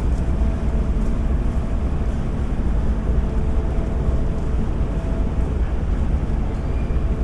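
Steady low rumble of harbourside ambience, with a faint hum laid over it.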